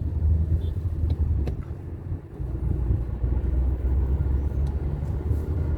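Low steady rumble of a car heard from inside its cabin, with a couple of faint clicks about a second in.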